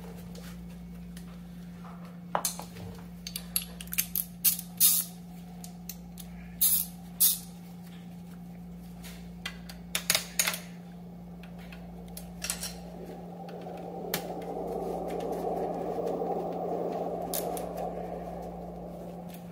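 Metal tool clicks and clinks as 4 mm Allen keys are fitted and turned on the bolts of a scooter's rear shock mount, with a longer scraping rustle in the second half. A steady low hum runs underneath.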